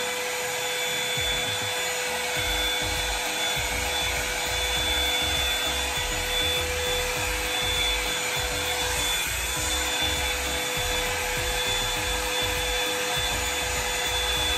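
Hot Tools One Step Blowout Volumizer hot-air brush running steadily: a rush of blown air over a constant motor whine.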